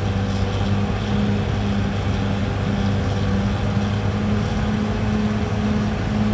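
CAT D6R XL bulldozer's diesel engine running steadily with a deep hum, and a higher hum above it pulsing on and off.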